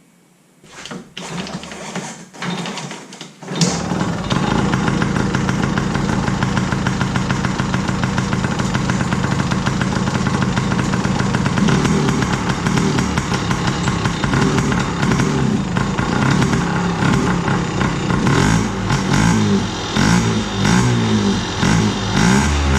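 2000 Yamaha PW50's 49cc two-stroke single-cylinder engine being kick-started on choke: a few short bursts, then it catches about three and a half seconds in and runs steadily, its speed wavering up and down in the last few seconds.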